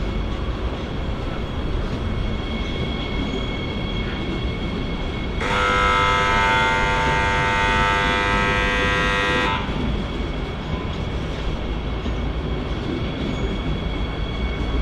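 Train horn sounding one long, steady blast of about four seconds, starting about five seconds in, over the steady low rumble of a train.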